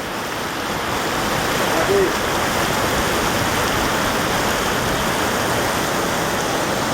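Floodwater of a swollen river rushing past in a steady, unbroken roar of fast water.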